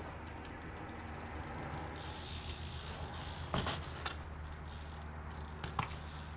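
Steady low rumble with a few short, sharp knocks from a BMX bike being picked up and ridden off across concrete: one about three and a half seconds in, a lighter one just after, and another near the end.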